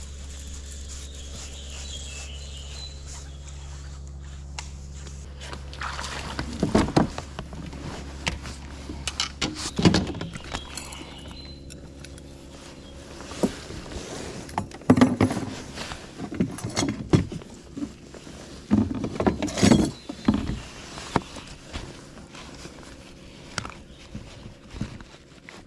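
Knocks and rattles of gear being handled aboard a fishing kayak, coming in several short clusters over a low steady hum that drops away about two-thirds of the way through.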